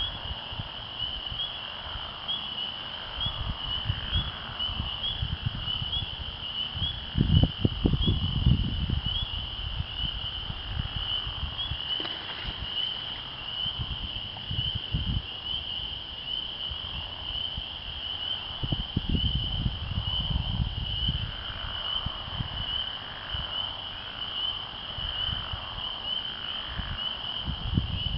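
A dense chorus of spring peepers: many high peeps overlapping into a steady ringing. Low rumbles and thumps on the microphone come and go over it, loudest about seven seconds in and again near nineteen seconds.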